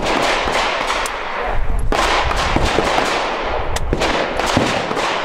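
Gunfire at a shooting range: repeated shots with a dense, echoing reverberation, and a sharp report about two seconds in, with more shots around four seconds.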